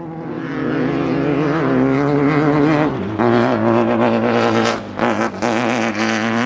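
Desert off-road race vehicle's engine running hard and revving, getting louder about half a second in, with the engine note wavering and briefly dropping a few times in the second half.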